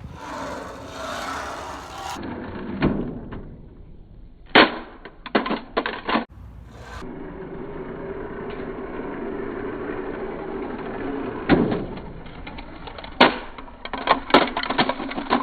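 Plastic toys knocking and clacking as they are handled, in a few quick clusters, over a steady hum.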